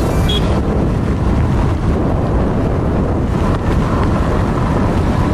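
Wind buffeting the camera microphone: a steady, loud, low rumbling noise.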